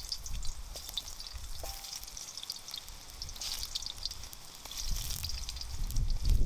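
Food slices sizzling and spitting in hot oil in a hand-forged steel campfire wok, a dense crackle of fine pops that swells about three and a half seconds in and again near five seconds.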